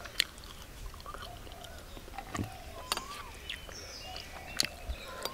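A metal spoon clinking and scraping against bowls as curry is scooped out and served, giving a few sharp clicks spread over several seconds. Birds chirp in the background, with short arched calls about a second and a half apart.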